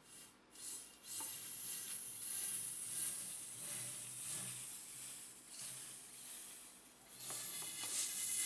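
Pressurised fluid spraying with a steady hiss that swells and eases several times.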